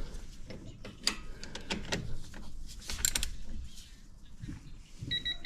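Clicks and metallic clatter of tools as a brake caliper bolt is tightened with a digital torque wrench. Near the end come a few short high beeps from the wrench, signalling that the set torque is reached.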